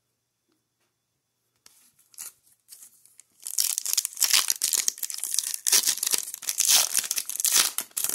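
A foil hockey-card pack being torn open by hand: a few faint crinkles, then from about three and a half seconds in, loud continuous crinkling and tearing of the foil wrapper.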